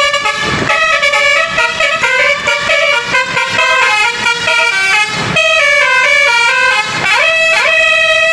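Indonesian bus telolet horn, a multi-tone air horn playing a fast tune of short notes that jump from pitch to pitch, with a few rising glides about seven seconds in.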